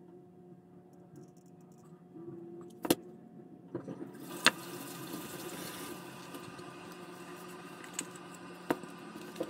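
A few sharp clicks and knocks of handling a metal dish and a hot glue gun, four in all. They sit over a steady hum, joined about four seconds in by a rushing hiss.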